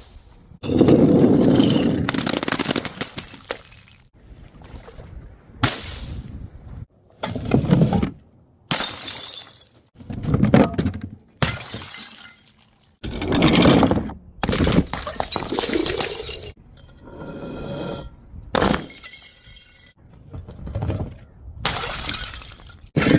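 Glass bottles smashing one after another, about ten separate shattering crashes, each dying away in a spray of tinkling shards, with a brief high ringing of glass partway through.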